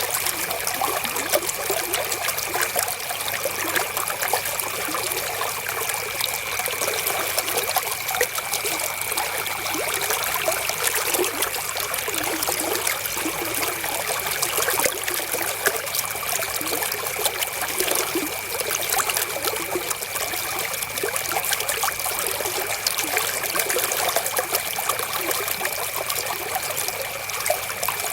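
River water flowing and trickling over stones, a steady splashing babble with a faint steady high tone underneath.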